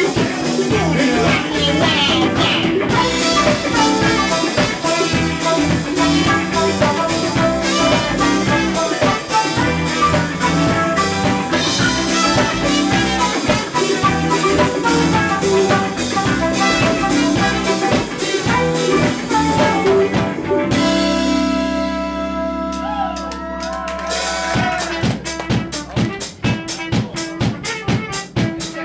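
Live band playing a loud song driven by a drum kit. About two-thirds of the way through, the drums drop back under long held notes, then fast drumming comes back in near the end.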